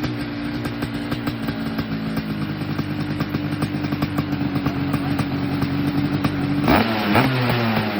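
Small go-kart engine running at a steady speed. Near the end it revs up sharply, then winds down with its pitch falling.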